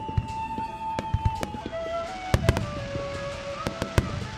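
Aerial firework shells bursting in a rapid barrage of sharp bangs, several close together, with the loudest cracks about halfway through and near the end. Held musical tones run underneath, changing pitch every second or so.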